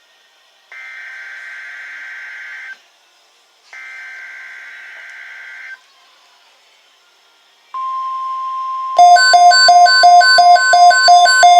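NOAA Weather Radio emergency alert: two bursts of the SAME header's data screech, each about two seconds long, then about eight seconds in the steady 1050 Hz warning alarm tone begins. About a second later a louder, rapid electronic alarm beeping starts over the tone.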